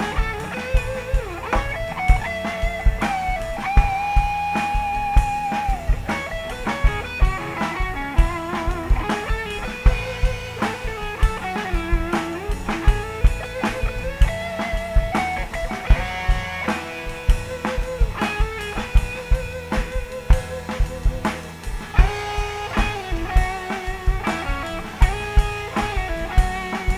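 Live blues-rock band with a Stratocaster-style electric guitar playing a lead line of held, bending notes with vibrato over steady drums.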